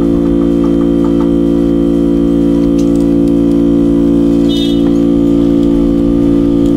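A loud, steady, low-pitched hum made of several held tones that never change, with a few faint ticks and a brief high chirp about four and a half seconds in.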